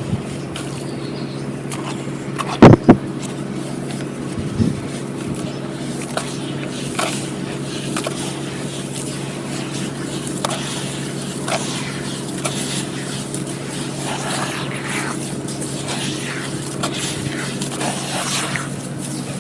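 Dry white chalky lumps crumbling and cracking by hand: a loud sharp double crack near the third second, a smaller crack a couple of seconds later, then scattered faint crackles. A steady low hum runs underneath.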